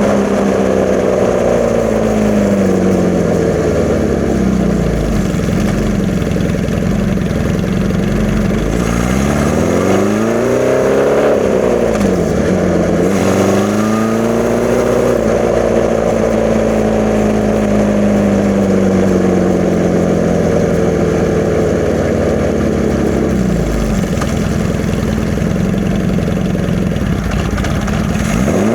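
1981 Honda CB650's air-cooled inline-four running through a Hindle 4-2-1 full exhaust, its revs rising and falling several times and holding steady for long stretches in between.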